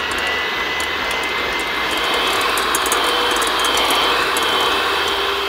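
Electric hand mixer running at speed, its beaters whisking a quark, egg and oil batter in a glass bowl: a steady motor whine with scattered light ticks.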